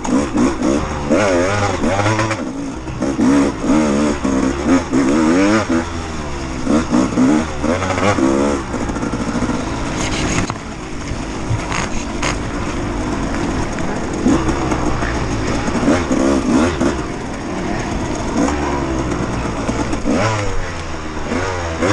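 KTM 200 XC-W two-stroke dirt bike engine being ridden hard, its revs rising and falling over and over as the throttle opens and closes, with a few sharp knocks in the middle.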